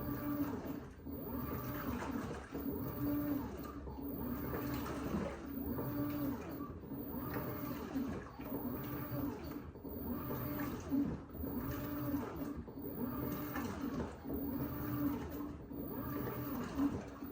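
LG WT16WV6 16 kg top-loading washing machine agitating a load of towels: the motor hums in short strokes, reversing about once a second, each stroke with water swishing.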